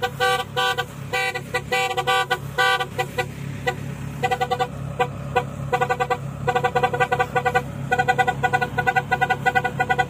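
Rice combine harvester running with a steady low engine hum, under fast, stuttering runs of short beeps, all at one unchanging pitch.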